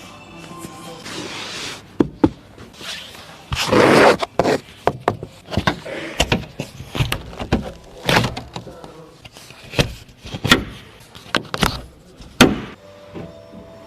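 Wuling Hongguang S minivan doors being worked: a string of sharp clunks and knocks, with a longer rolling noise about four seconds in that is the loudest part.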